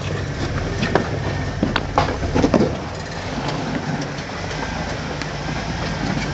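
Jeep Wrangler's engine running steadily at low revs as it crawls over a rock ledge, with several sharp knocks in the first three seconds.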